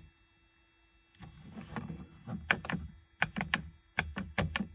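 Plastic hazard-warning switch on a Smart City Coupe dashboard clicking repeatedly as it is pressed, in quick irregular groups of sharp clicks over a low rustle of handling from about a second in. The switch is faulty: the hazard lights don't come on.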